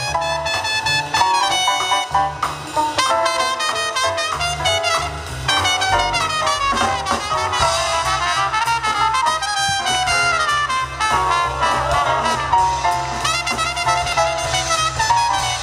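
Live jazz: two trumpets playing fast runs over a band with drums and saxophones.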